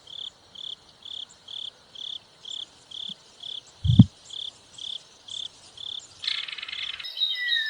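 Kingfisher calling: a steady run of short, shrill, high notes of the same pitch, about two a second. A single loud low thump comes about four seconds in, and the calls turn into a denser buzzy chatter near the end.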